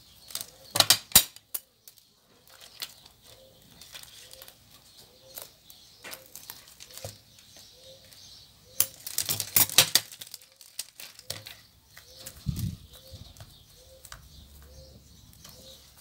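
Thin clear plastic crinkling and crackling under the fingers, with scissor snips as a bead trim is cut, in two bursts: about a second in and again around nine to ten seconds in.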